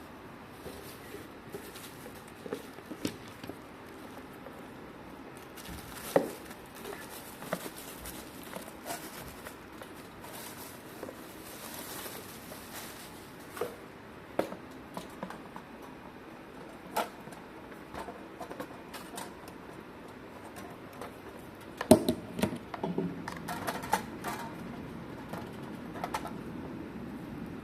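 Intermittent clicks, knocks and light rustles of a toaster and its packaging being handled, with a cluster of louder knocks about two-thirds of the way through.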